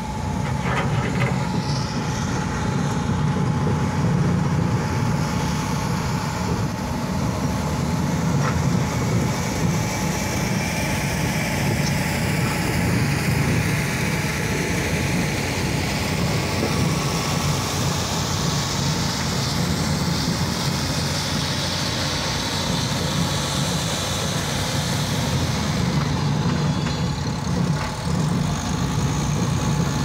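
1400-700 horizontal wood chipper running steadily under load while its conveyor discharges chips: a continuous low machine drone with a thin steady whine above it.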